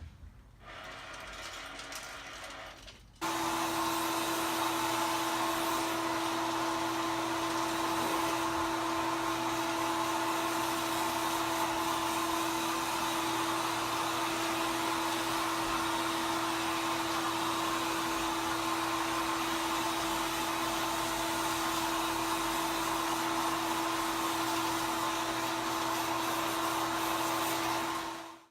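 Hair dryer switching on about three seconds in and running steadily: a constant rushing of air with a steady whine, cutting off suddenly near the end. It is preceded by a click and a quieter whir.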